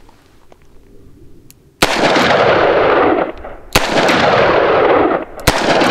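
Three .357 Magnum shots from a Taurus 605 polymer-frame revolver with a 2-inch barrel, firing 125-grain Barnes TAC-X hollow points. The first comes a little under two seconds in, and the shots fall about two seconds apart, each followed by a long rolling echo.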